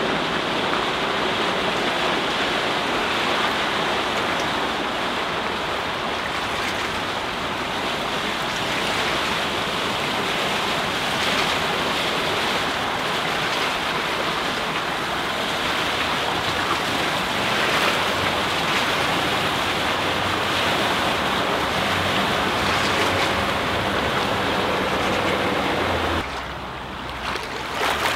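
Steady rushing noise of wind and water as a Larson 240 Cabrio sports cruiser runs past at speed, with the faint low hum of its MerCruiser 5.0 MPI stern-drive engine under it in the second half. The noise drops away briefly near the end.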